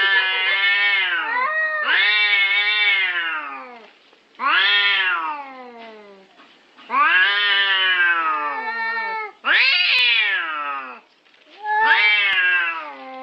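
Cats yowling at each other in a territorial standoff: long, wavering wails that rise and fall in pitch, about six of them in turn with short pauses between.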